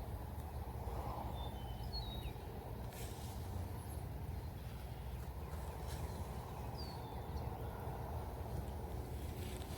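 Outdoor pondside ambience: a steady low rumble with short bird chirps, a few about 2 seconds in and another about 7 seconds in.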